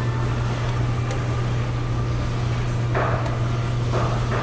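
Steady low machine hum under constant background noise, with two brief louder sounds about three and four seconds in.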